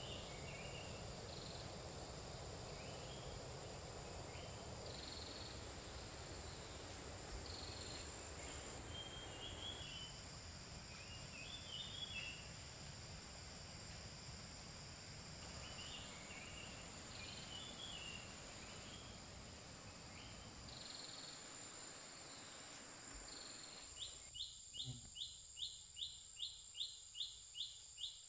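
Outdoor nature ambience: a steady high insect drone with scattered bird chirps. Near the end a rhythmic chirping sets in, about three or four pulses a second.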